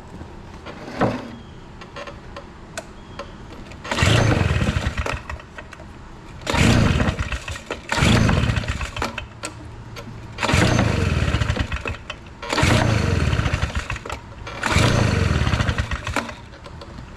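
Stihl BR 340 backpack blower's two-stroke engine being pull-started six times. Each pull gives a second or so of cranking that dies away without the engine catching: it won't start, which the owner suspects is a flooded carburetor.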